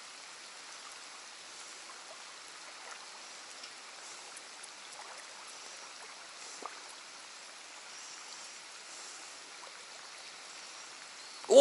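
Faint, steady outdoor hiss, like gently moving water, with a few soft ticks, ending in a sudden loud burst right at the very end.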